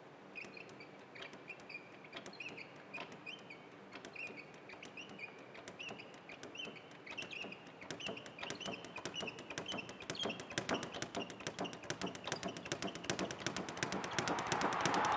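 Leather speed bag being punched against its rebound board: the taps are sparse at first and quicken into a fast rattle. A run of short high chirps climbs in pitch over it, and a rush of noise swells up near the end.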